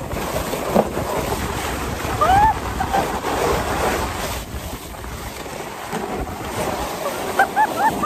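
Wind rushing over a phone's microphone while sliding down an icy snow slope on a sled. Short gliding voice cries come through about two seconds in and again near the end.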